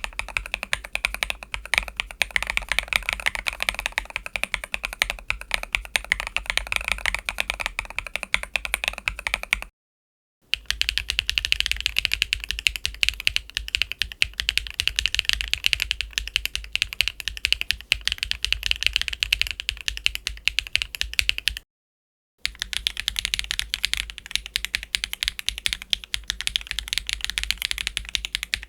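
Hitune KM17 linear mechanical keyboard switches typed on steadily and fast, with dense continuous keystrokes. It comes in three takes on different keyboard setups, broken by two short silent cuts about ten and twenty-two seconds in. The tone of the typing changes from one take to the next.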